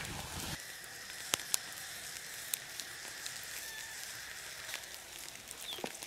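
Wood campfire with pine in the wood crackling, with scattered sharp pops over a steady hiss, while a sausage sizzles on the embers. A low rumble stops about half a second in.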